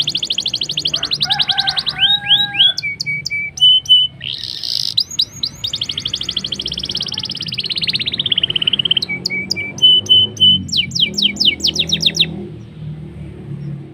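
Domestic canary singing a long song in rapid phrases: very fast rolling trills, short clear whistled notes and quick falling notes. The song stops about 12 seconds in.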